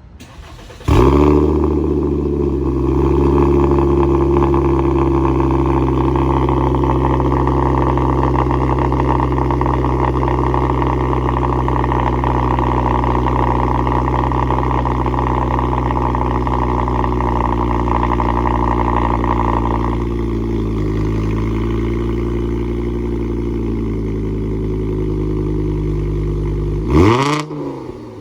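VW Jetta MK6 engine cold-starting through an aftermarket muffler with an electronic exhaust valve. It catches about a second in and runs at a steady fast cold idle. The note drops and gets a little quieter about twenty seconds in, and a quick rev comes near the end.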